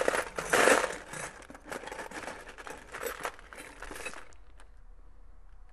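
A hand rummaging through a box of hardware: clear plastic bags crinkling, with small clicks of loose metal screws shifting. It is loudest in the first second and dies away after about four seconds.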